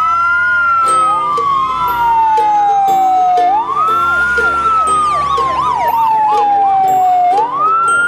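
Fire engine sirens wailing. One siren rises quickly and falls slowly in a cycle about every three and a half seconds. Another siren yelps in faster up-and-down sweeps over it from about halfway through.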